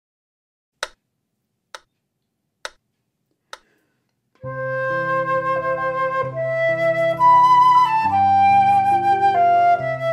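Four evenly spaced clicks, about one a second. Then, from about four seconds in, a concert flute plays a slow melody in held notes over a lower piano accompaniment.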